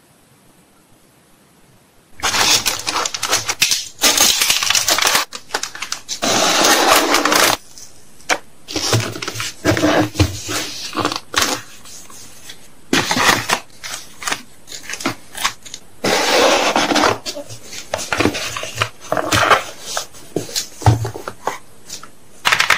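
Packaging being handled during packing: irregular bursts of rustling and crinkling, mixed with sharp clicks and light knocks, starting after about two quiet seconds.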